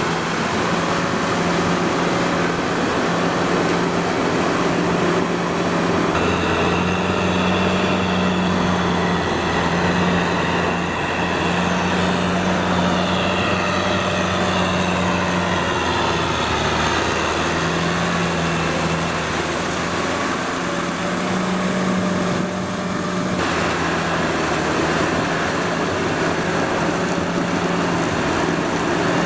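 Kubota M6040SU tractor's diesel engine running steadily under load while it drags a rotary tiller through deep, wet mud.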